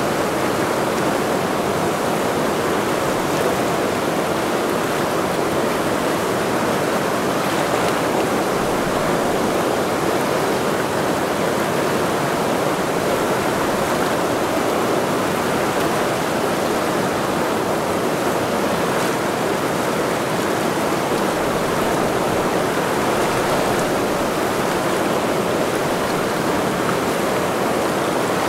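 The Ursul, a fast mountain river, rushing over its bed: a steady, even noise of running water that never lets up.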